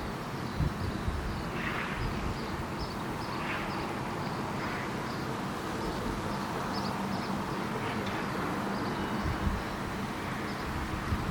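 Low steady rumble and hum of a large cruise ship under way, with wind gusting on the microphone. Faint small bird chirps repeat throughout, and a few short bird calls come in about two, three and a half and five seconds in.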